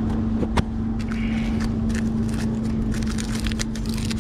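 Aluminium foil crinkling and crackling as it is pinched and peeled back from around a cup of cooked eggs, with the crackles thickening in the last second or so. A steady low hum runs underneath.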